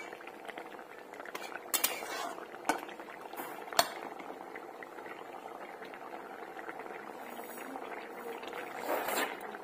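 Thick small-fish curry simmering and bubbling in a wok, with a few sharp clinks of a metal spatula against the pan between about two and four seconds in.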